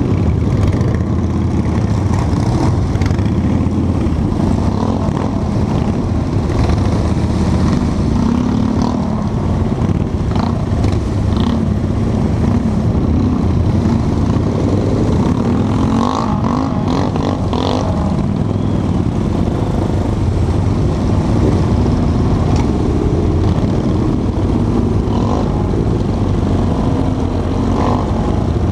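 Motorcycle engines of a large pack of cruiser bikes running at low speed, the nearest bike's exhaust note steady throughout, with a few short clicks and rattles a little past halfway.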